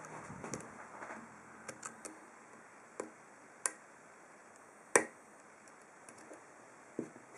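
Scattered sharp metallic clicks and ticks of lock picks working the pins inside an ASSA Ruko 2 padlock's 7-pin core, about nine in all, the loudest about five seconds in.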